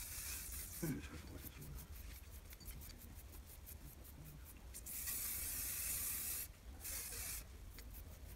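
Hair spray hissing out of a spray bottle into hair in a burst during the first second, then fingers rubbing and scrunching the hair with a fine crackle. A second, longer hiss of spray comes about five seconds in, with a short one after it.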